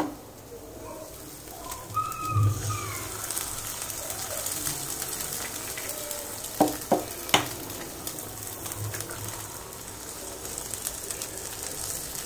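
Eggs frying in hot oil in a nonstick pan with onions and peas, a steady sizzle. About seven seconds in, three sharp taps as the second egg is cracked and dropped in.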